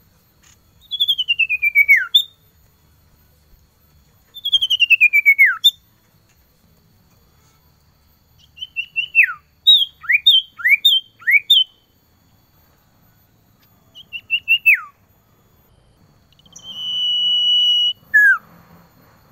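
Male common iora singing its call to a female: two long trilled whistles gliding down in pitch, then a quick run of short up-and-down whistled notes, a shorter falling phrase, and near the end one long even whistle held on a single pitch followed by a falling note.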